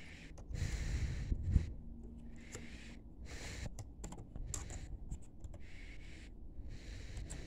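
Soft, irregular key taps on a compact Everest BT82 Bluetooth keyboard as someone types, with one louder knock about a second and a half in.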